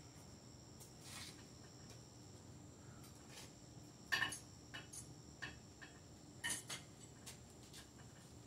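Scattered light metal clicks and clinks from a home gym machine's weight stack and fittings as it is handled, the sharpest about four seconds in and again about six and a half seconds in.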